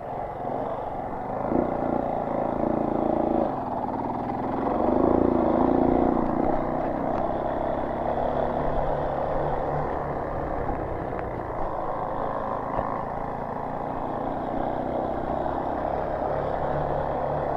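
Motorcycle engine running as the bike is ridden over sand and gravel, the sound swelling a couple of times in the first few seconds and then holding steady. The bike struggles in this soft sand.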